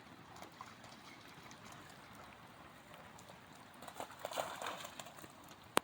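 Faint splashing and trickling of water in rain puddles, a dog moving through them, with a louder run of splashes about four seconds in.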